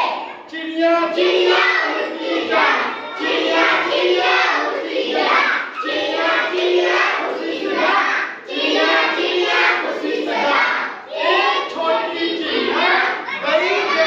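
A group of children singing an action song together with their teacher, in short repeated phrases with a few briefly held notes.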